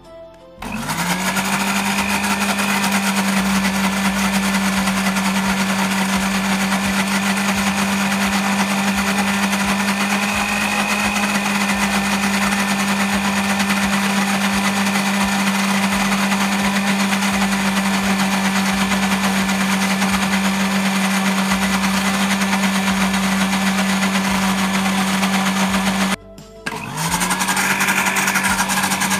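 Philips countertop blender motor spinning up and running steadily, grinding raw mackerel tuna with ice water into a thick fish paste. It cuts off suddenly about 26 seconds in and is switched on again a moment later.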